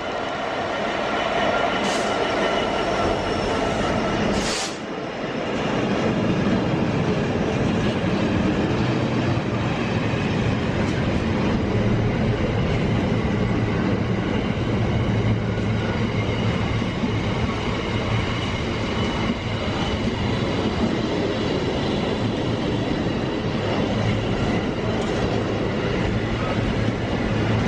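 A train running along the track, with a continuous steady rumble and a short break with a sharp click about four and a half seconds in.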